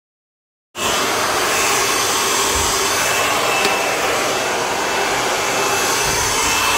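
Silence, then a hand-held hair dryer switching in abruptly about a second in and blowing steadily at close range, with a faint high whine, as freshly coloured hair is blow-dried.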